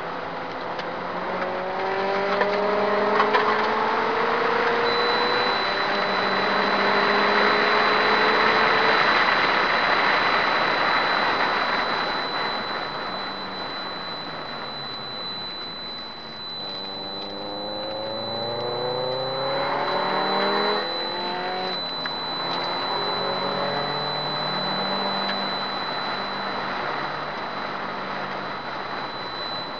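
Subaru Impreza S204's turbocharged 2.0-litre flat-four pulling hard on track, its revs climbing in repeated rising pulls with gear changes between them, with a dip about halfway before it accelerates again. It is heard from inside the car over heavy wind and road noise, and a steady high-pitched whine sets in a few seconds in.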